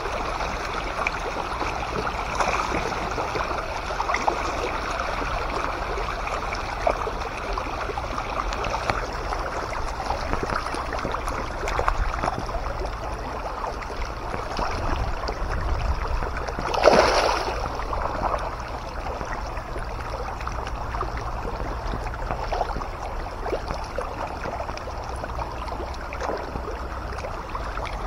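A crowd of fish thrashing and splashing at the surface of a pond in a feeding frenzy: a steady churning patter of many small splashes, with one louder splash about two-thirds of the way through.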